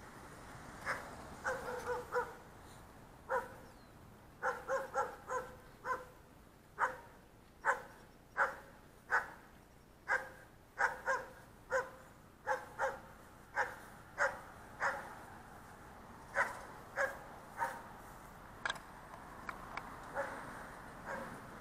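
A dog barking over and over in short, sharp barks, some in quick runs of three or four and others at a steady pace of about one every second or less.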